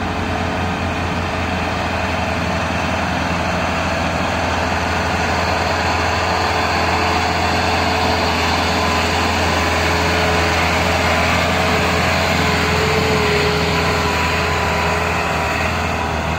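Massey Ferguson 385 tractor's diesel engine running steadily under load while hauling a heavily loaded sugarcane trolley, growing a little louder in the middle as it passes close.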